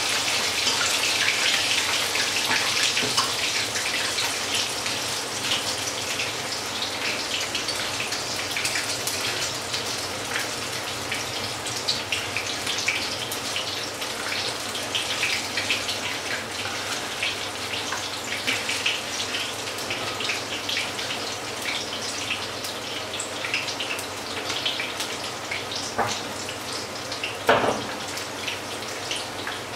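Patties of batter frying in hot oil in a pan, a steady sizzle with fine crackling, loudest just after they go in and easing off gradually. A short clatter near the end.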